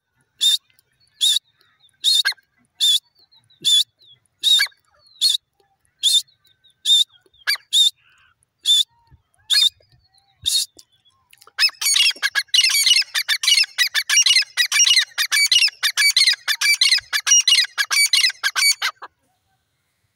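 Grey francolin calling: about thirteen loud, high single notes just under a second apart, then from about halfway a fast, dense run of repeated notes lasting some seven seconds that stops abruptly.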